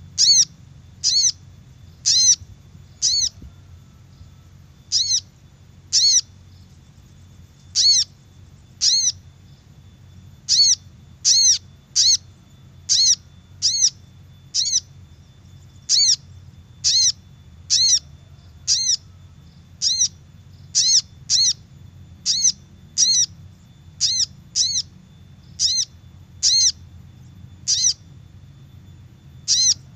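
Little spiderhunter (sogok ontong) calling: a short, sharp, high-pitched note repeated about once a second, with a few brief pauses, used as a lure call to attract wild birds.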